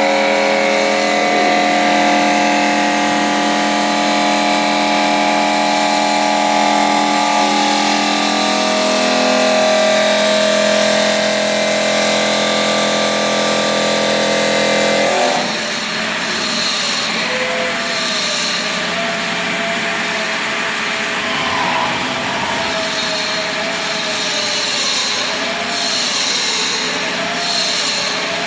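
CNC stone-cutting saw running as it cuts marble. A steady whine through the first half changes abruptly about halfway through to a tone that wavers up and down over a constant grinding hiss.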